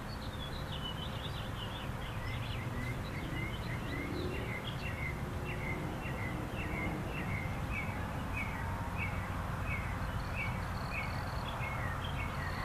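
A bird sings a long run of short, repeated chirps, about two a second, over the steady rush and hum of vintage electric fans running: a Windmaker S-17 fan and a General Electric F13W box fan.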